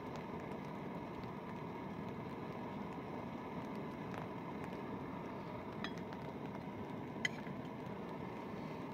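A metal spoon clinking lightly against a metal camping pot a few times, with one sharper click about seven seconds in, over a steady low rushing noise.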